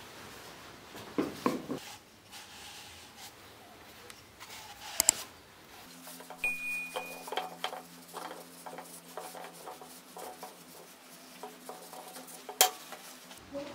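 Wooden goblet with a loose captive ring being handled while tung oil is wiped on with a cloth: soft rubbing and small wooden clicks, with two sharp knocks, one about five seconds in and one near the end.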